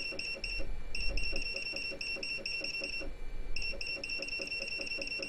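Geeetech E180 Z-axis stepper motor creeping the print head up in 0.05 mm steps. It makes a rhythmic series of short high-pitched chirps with soft ticks, about five a second, pausing briefly about a second in and again about three seconds in.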